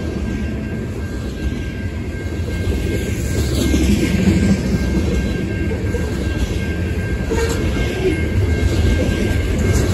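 Loaded coke hopper cars of a freight train rolling past: a steady low rumble of steel wheels on rail with occasional clicks, swelling slightly about four seconds in.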